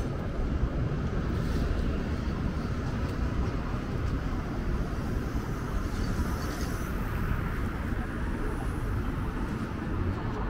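Steady city street noise: a continuous traffic rumble and urban hum, with no single standout event.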